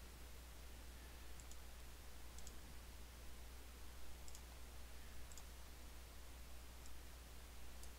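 Faint computer mouse clicks, about six of them, spaced roughly a second apart, over a low steady hum.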